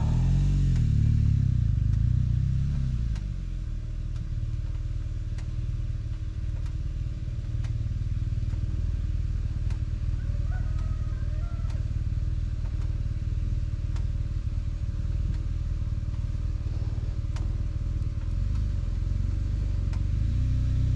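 BMW S 1000 XR motorcycle's inline-four engine idling steadily, a continuous low rumble with a few faint clicks over it.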